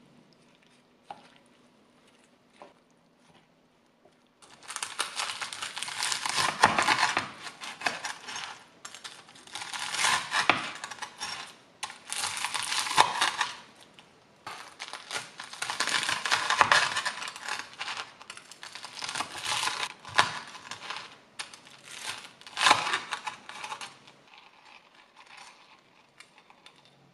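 A knife sawing through the crisp breaded crust of fried king oyster mushroom cutlets onto a wooden cutting board: loud crunching in about six bouts of sawing strokes, starting about four seconds in.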